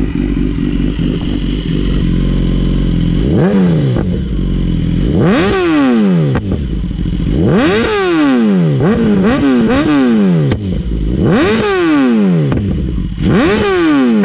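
2014 BMW S1000RR's 999 cc inline-four through an Akrapovic full-system exhaust, idling steadily, then revved in about seven quick throttle blips from about three seconds in, each one rising sharply and dropping back to idle.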